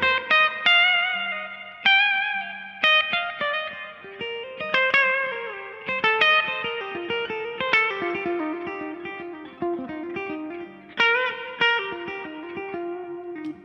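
Background music: an electric guitar playing a slow melody of single plucked notes with a slight vibrato, each note ringing out and fading.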